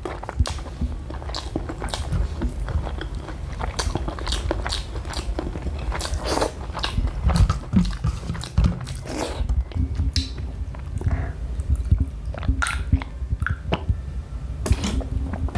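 A person biting and chewing close to the microphone: wet chewing with irregular crunchy bites and crackles, from eating hard-boiled eggs with green chillies.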